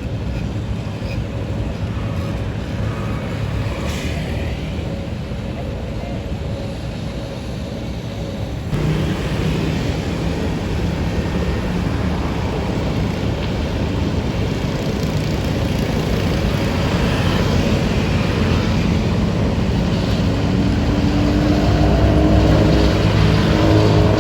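Heavy diesel road-paving machinery running, a steady low rumble. About nine seconds in the sound changes suddenly and gets louder, and near the end a higher engine tone joins in.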